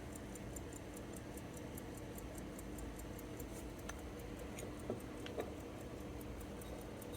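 American Waltham 18-size pocket watch ticking steadily, a quick even tick about five times a second, with no crystal fitted over the movement. A few faint handling clicks come about four and five seconds in.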